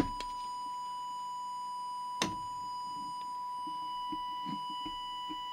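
Steady, unbroken test tone from a small audio oscillator, fed into the CB radio's microphone input while the transmitter's FM deviation is set. A single click about two seconds in.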